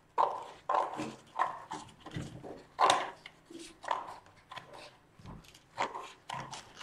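Scissors cutting through an egg carton: a string of crunchy snips, roughly one every half second to a second.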